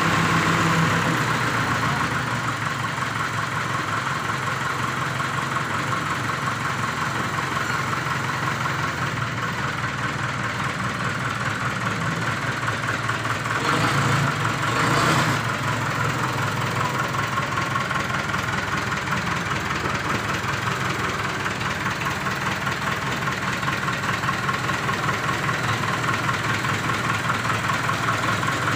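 Backhoe engine running steadily, swelling briefly louder about halfway through.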